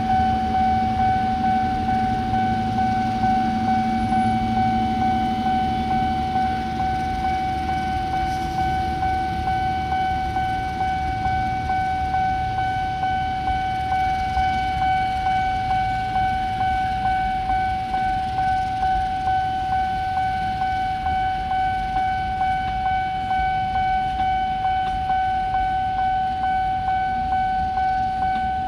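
Level-crossing warning alarm sounding one steady high tone with a slight regular pulse, over a passing passenger train. The diesel locomotive's low engine drone is strongest for the first seven seconds or so, then gives way to the lighter running noise of the coaches.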